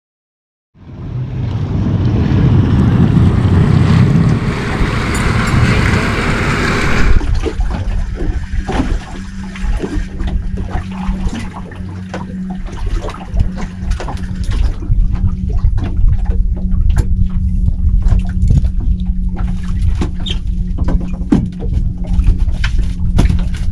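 A loud wash of water-like noise that cuts off suddenly about seven seconds in, then the sound of a small boat on open water: a steady low hum under wind and water noise, with many short knocks and taps.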